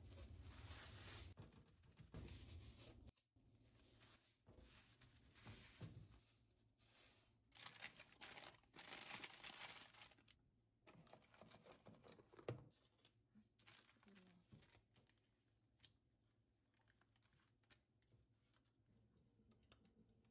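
Crinkly material being handled at close range: rustling and tearing in two stretches, then scattered light clicks and knocks in the second half.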